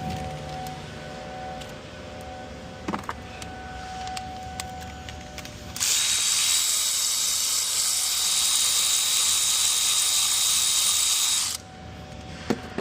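A few small metal clicks and knocks of tools on the engine, then a cordless power tool runs steadily for about six seconds with a thin high whine, spinning out the cover bolts on the 6.7L Cummins intake.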